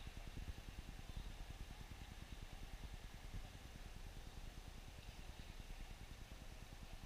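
Faint outdoor town ambience: a low, fluttering rumble with a steady distant traffic hum and no distinct events.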